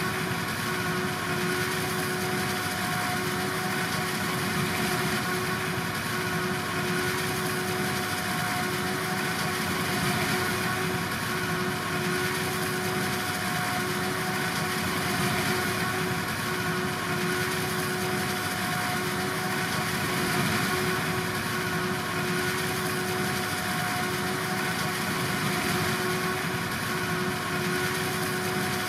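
Silage-harvest farm machinery running steadily at constant speed: an even engine drone with a steady high whine over it, swelling and easing slightly every couple of seconds.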